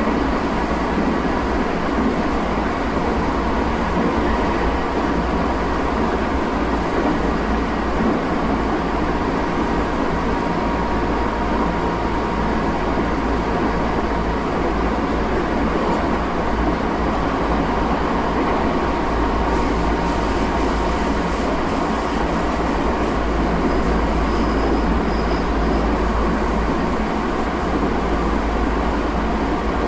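Tokyo Metro 8000-series armature-chopper train running at speed, heard from inside the car: a steady rumble of wheels on rail with a faint steady whine. About two-thirds of the way through, sharper crackling and hiss come in on top, with brief high squeal-like tones.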